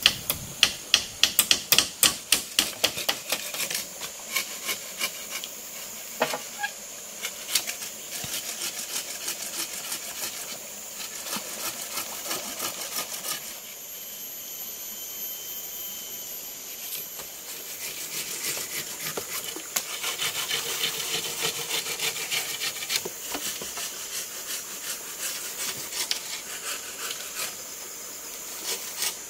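Wood being worked with hand tools: quick sharp knocks, about three a second, for the first few seconds, then a long run of rhythmic rasping strokes like sawing or scraping wood, which ease off around the middle and pick up again.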